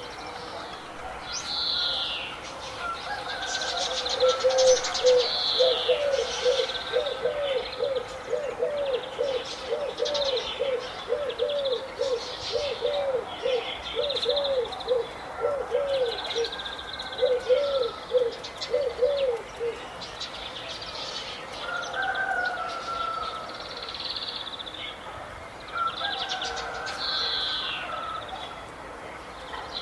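Several birds chirping and singing together, with high, quick calls throughout. From about four seconds in to about twenty, a low note repeats about twice a second, then stops.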